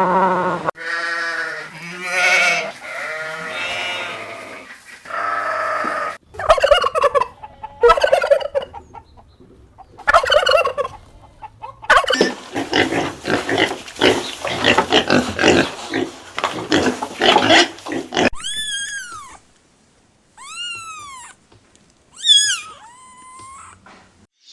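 Farm animal calls, one after another: several pitched calls, then a long rapid pulsing call, then three high, arched bird chirps near the end.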